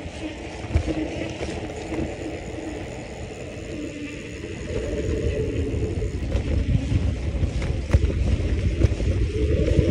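A bicycle ride: the low rumble of wind buffeting the microphone and the tyres rolling over paving, growing louder about halfway through. There are a couple of sharp knocks, one near the start and one near the end.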